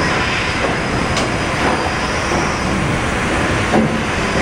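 The paddle steamer Waverley's 1946 Rankin & Blackmore triple-expansion steam engine running under way, its cranks and connecting rods turning. A loud, steady mechanical din, with a couple of faint ticks.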